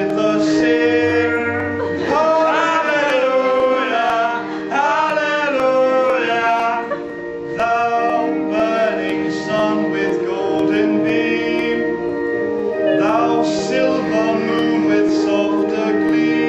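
A hymn: voices singing phrase by phrase over steady held chords.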